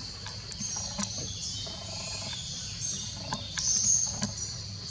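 High-pitched outdoor chirping that repeats in short rising sweeps, over a steady low rumble, with scattered light clicks.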